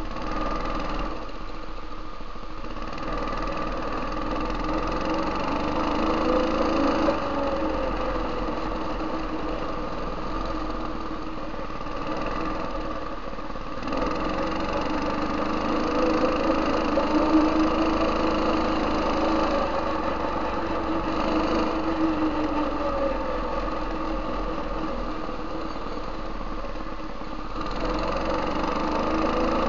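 Go-kart's 8 hp Tecumseh HM80 single-cylinder engine running under way on its freshly rebuilt carburetor, its pitch rising and falling several times as the kart speeds up and slows down.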